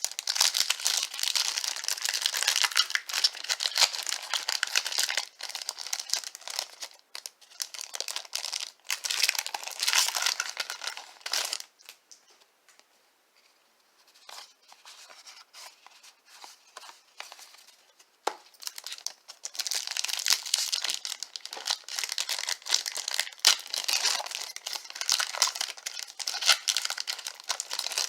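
Trading card pack wrappers crinkling and being torn open, in two long stretches of dense rustling. Between them, in the middle, is a quieter stretch of about six seconds with only scattered crackles.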